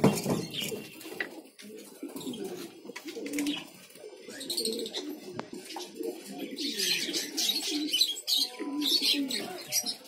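Domestic pigeons cooing in repeated low, warbling phrases. From about four seconds in, short high cockatiel chirps join in.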